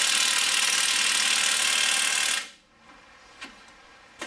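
Cordless impact wrench hammering through long socket extensions on a driveshaft bolt, the axle held still, trying to crack the bolt loose. It runs steadily, then stops abruptly about two and a half seconds in, followed by a couple of faint clicks.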